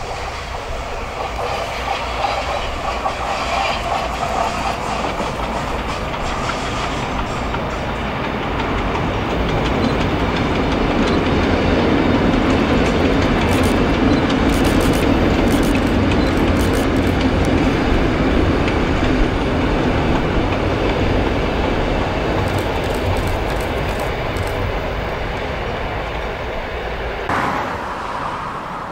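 Diesel-hauled passenger train crossing a long steel bridge, a steady rumble with wheels clattering over the rails. It swells as the train passes, peaks about halfway through, and slowly fades, with a sudden change to a quieter, different sound near the end.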